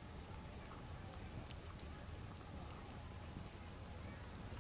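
Crickets chirring in one steady high band, with a few sharp crackles from the campfire where a camp chair is burning.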